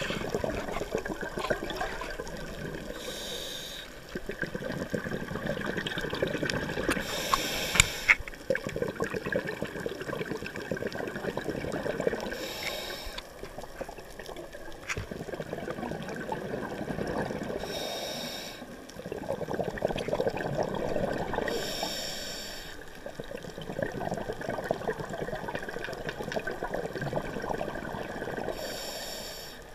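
Scuba diver breathing through a regulator underwater. About six short hisses on the inhale come every four to five seconds, with a long bubbling rush of exhaled air between them.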